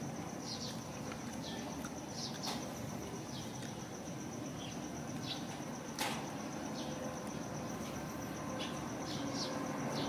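Outdoor ambience: a steady high insect drone with faint, scattered short chirps of birds, and one sharp knock about six seconds in.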